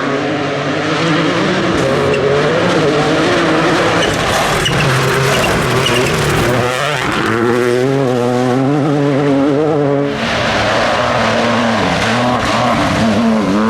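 Rally car engine revving hard at full attack, its pitch climbing and dropping again and again through the gears, over a broad hiss of tyres on loose gravel. The sound changes abruptly about ten seconds in.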